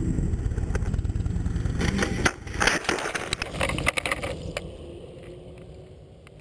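Motorcycle engine running steadily, then about two seconds in it breaks off into a burst of crashing, scraping and crackling impacts as the motorcycle goes off the road past a guardrail into brush. The noise dies down after about four and a half seconds.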